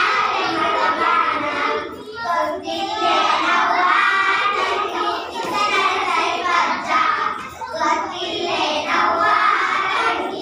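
A group of children singing a song together in phrases, with brief breaks about every two to three seconds, with hand clapping.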